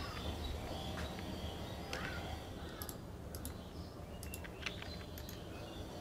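Faint computer keyboard and mouse clicks, a few scattered taps over a low steady background hum.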